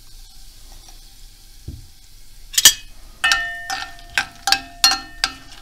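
Dried hot peppers and red pepper powder sizzling faintly in olive oil in a frying pan, then a metal spoon stirring them, knocking against the pan several times with a ringing clink in the last couple of seconds.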